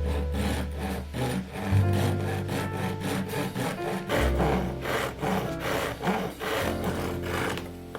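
A hand tool working a beech wood blank in a steady run of back-and-forth strokes, with background music.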